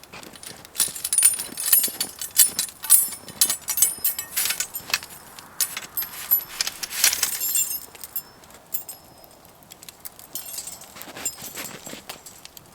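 Metal parts of a campfire A-frame being set up: a rapid run of clinks, knocks and rattles with a bright ring, busiest in the first two-thirds and thinning out near the end.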